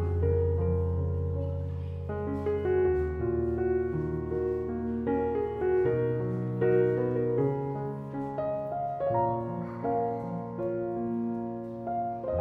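Background piano music: a gentle melody of single notes over held bass notes that change every few seconds.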